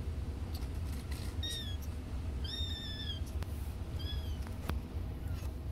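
Young kittens mewing: three high-pitched cries about a second apart, the middle one longest, with a couple of light clicks, over a low steady hum.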